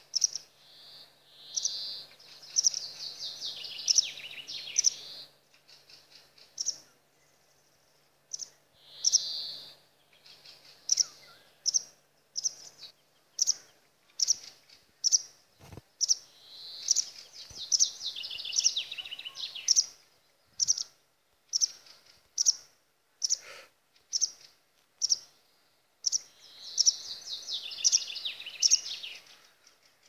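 Songbirds calling: a short, sharp, high call repeated about once a second, and three times a longer song of rapid notes that step down in pitch over two to three seconds.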